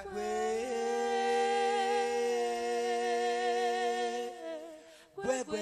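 A singer holds one long, steady hummed or sung note for about four seconds, with no audible accompaniment. The note fades out, and new sung phrases begin near the end.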